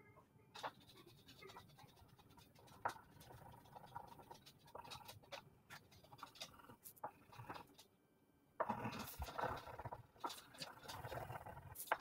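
A drawing tool scratching across paper: short separate strokes at first, then, about two-thirds of the way through, a denser and louder run of back-and-forth scribbling as a dark area is filled in.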